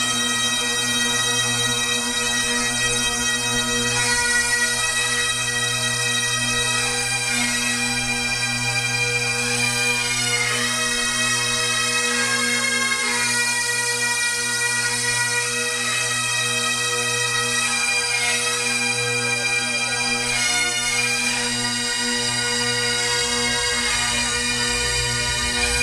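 Massed Highland bagpipes playing a slow air in unison, the steady drone hum under long held chanter notes.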